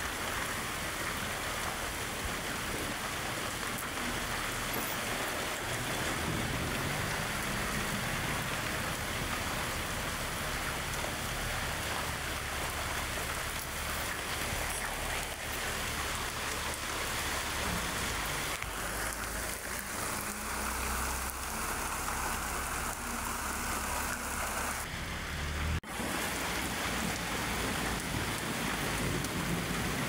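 Steady rain, an even hiss of falling drops with no distinct rhythm, with a momentary dropout near the end.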